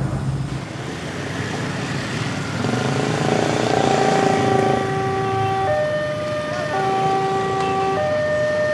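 Railroad crossing's electronic warning alarm starting about three seconds in: two steady tones alternating roughly once a second, the warning that a train is approaching. Motorcycle and car traffic runs underneath.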